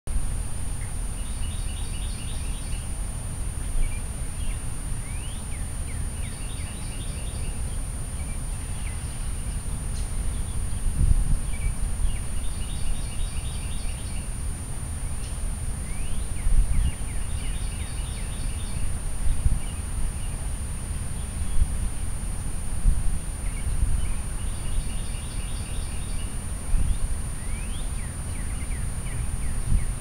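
Songbirds singing, including a northern cardinal. One bird repeats a short phrase of quick notes about every five to six seconds, with rising whistled chirps in between. A loud, uneven low rumble runs underneath.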